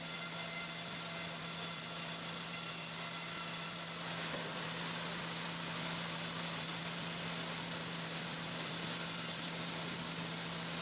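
Sawmill machinery running steadily, a constant low hum under an even hiss, with a slight change in tone about four seconds in.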